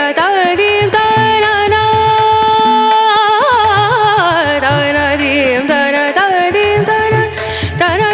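Devotional song: a singer holds long, wavering notes over a tabla beat.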